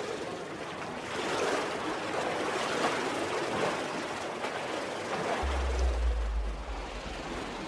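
Steady splashing and rushing water from someone swimming. A deep low hum comes in about five and a half seconds in.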